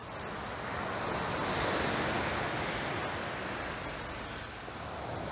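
Surf breaking on the shore mixed with wind on the microphone: a steady rushing noise that swells about two seconds in and eases slightly near the end.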